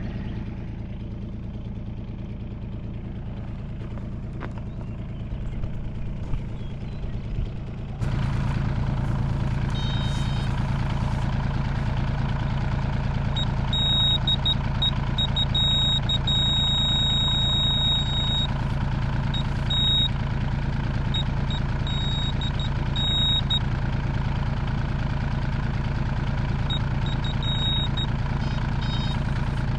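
Mini excavator's diesel engine running steadily while digging, louder from about eight seconds in, with a high-pitched tone coming and going over it.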